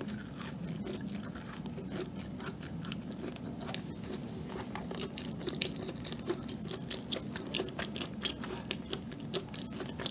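Chewing a bite of red velvet cucaron, a macaron-style sandwich with a cookie base: many small crisp crunches from the crispy cookie bottom among softer chewing of the chewy top.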